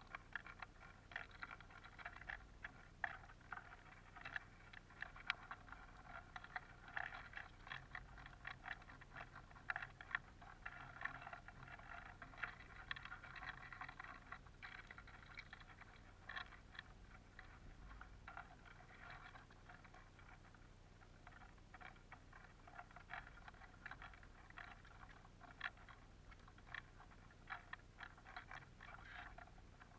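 Eurasian bullfinches and Eurasian siskins pecking and cracking sunflower seeds on a wooden feeder tray: many small, irregular clicks and taps, several a second, over a faint steady hum.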